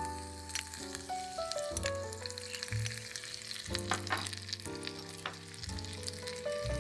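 Diced garlic frying in hot oil in a tiny ceramic pot: a steady sizzle with scattered crackling pops. Background music with stepped melodic notes and a bass line plays over it.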